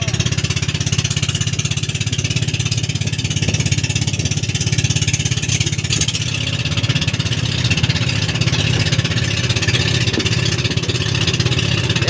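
Boat engine running steadily under way, a low rhythmic drone, with a constant hiss over it.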